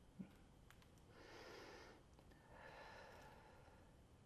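Faint, slow breathing by a person holding a yoga stretch: two long breaths of about a second each.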